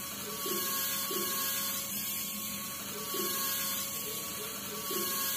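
Small electric motor driving a handmade miniature machine, a steady whine with a regular pulse about once a second.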